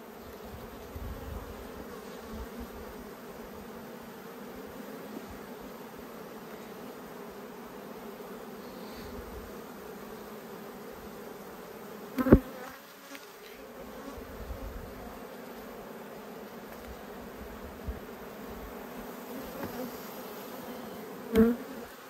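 Honey bees humming steadily over an open hive's frames, with a sharp knock about twelve seconds in and a smaller one near the end.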